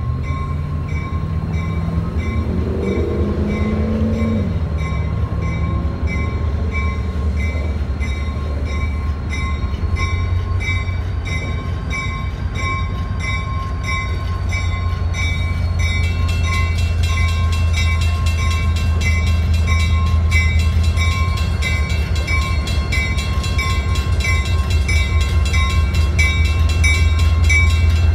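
Diesel locomotive NH&I 2198 moving slowly with its engine drumming low and steady, growing louder as it draws near, while its bell rings on and on.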